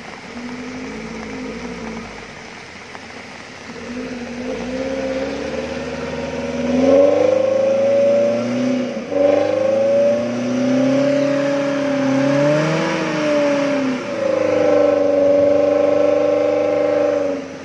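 Engine of a small short-wheelbase 4x4 revving under load as it drives through mud, its pitch rising and falling with the throttle. It is fairly quiet at first and gets much louder about seven seconds in.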